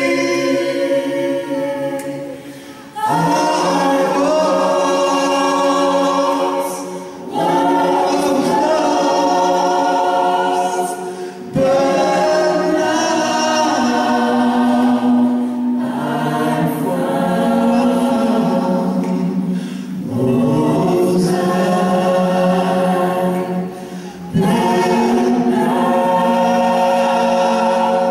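Gospel choir singing, led by a male soloist on a microphone, in sung phrases of about four seconds with short breaks between them.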